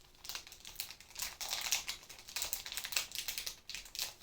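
A plastic wrapper crinkling and crackling in irregular bursts as an individually wrapped daifuku is torn open by hand.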